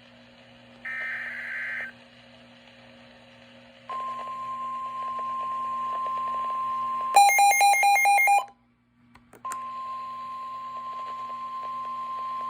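NOAA Weather Radio alert signals: a short burst of digital data tones, then the steady 1050 Hz warning alarm tone. A few seconds into the tone, a loud burst of warbling data tones cuts in, followed by about a second of silence, and then the steady alarm tone resumes.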